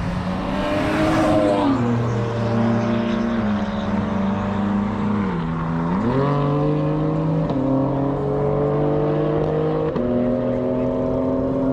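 A high-performance car engine accelerating hard, its pitch climbing steadily and falling briefly at gear changes about one and a half and five and a half seconds in.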